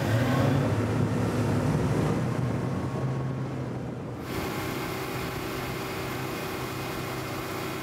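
Mercury outboard motor running hard with the throttle open, the boat moving fast with wind and water rushing past. About four seconds in the sound shifts to a steadier, slightly quieter drone.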